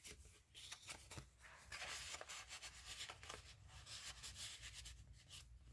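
Faint rustling and light ticks of paper and card being handled, as a picture card and a paper tag are slid down into a paper pocket on a journal page.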